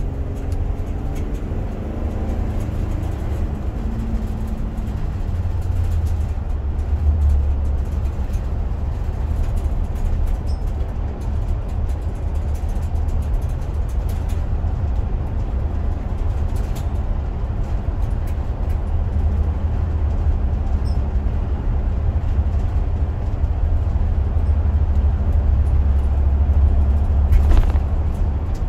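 Steady low rumble of a car being driven, heard from inside the cabin. A short, sharper sound comes near the end.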